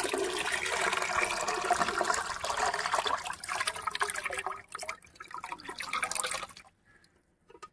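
Water poured from a plastic basin into a tub pond, splashing and gurgling into the water surface as the fish are tipped in; the pour stops about six and a half seconds in.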